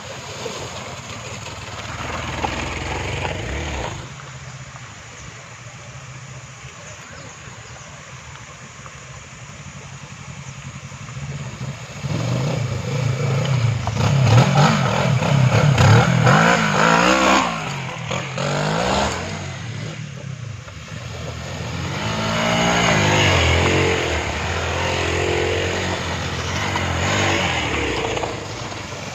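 Hero XPulse 200 motorcycle's single-cylinder engine revving up and down while riding off-road. The engine note rises and falls repeatedly, quieter for several seconds, then loudest through the middle and again near the end.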